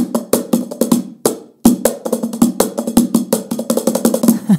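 Meinl mini cajon with a birch front plate and snare wires inside, played by hand in a fast groove of deep bass tones and sharp slaps. There is a short break about a second and a half in.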